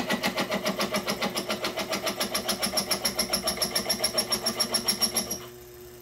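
Sherline mill drilling out an oblong, off-center hole in a cast shift-linkage part at about 400 RPM: the bit is off center and hitting everywhere, giving a steady knocking about seven times a second. The knocking stops about five seconds in, leaving a faint steady hum.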